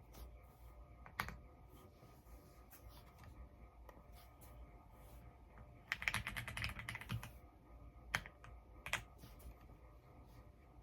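Typing on an EPOMAKER x Aula F99 mechanical keyboard with Graywood V3 switches: scattered keystrokes, a quick run of keys about six seconds in, and a few louder single strokes.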